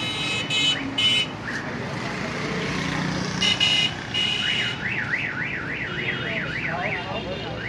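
Electronic alarm sounding: several short pitched beeps, then a fast warbling tone that rises and falls about four times a second for a couple of seconds.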